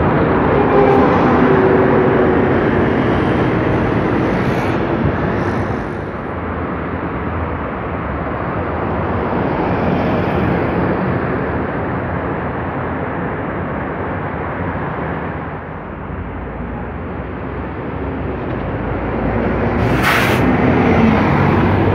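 City buses driving past one after another at close range, engines running over steady tyre and traffic noise that swells as each bus goes by. A brief sharp hiss comes about twenty seconds in.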